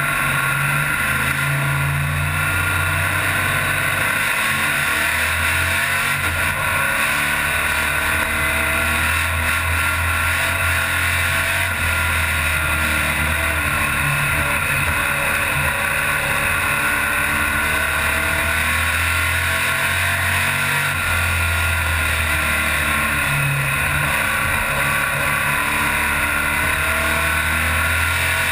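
Stock car engine running steadily, heard from inside the cockpit, its pitch wavering a little up and down without any hard revving.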